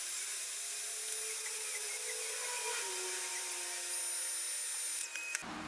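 Heat gun running, a steady rush of blown air with a thin high whine, as hot air is played on a tool's plastic overmolding. It stops near the end.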